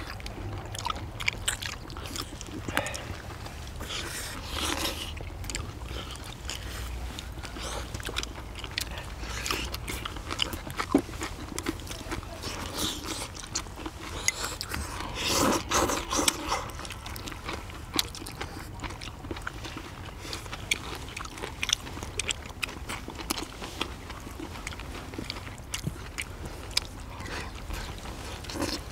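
Several people eating spicy steamed monkfish with bean sprouts: close chewing, crunching and lip smacking, with scattered small clicks and scrapes of chopsticks on plates and bowls. It is busiest about halfway through.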